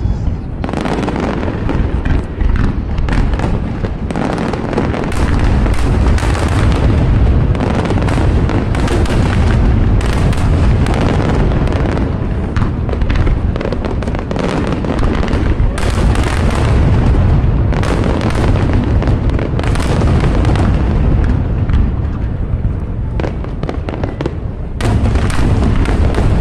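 Aerial fireworks display going off in rapid, overlapping volleys: a continuous run of deep booms and sharp crackling bursts. There is a short lull near the end, then another dense volley.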